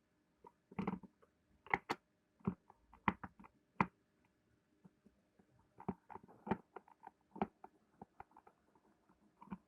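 Irregular light clicks and knocks of a Makita 6412 drill being handled and taken apart by hand.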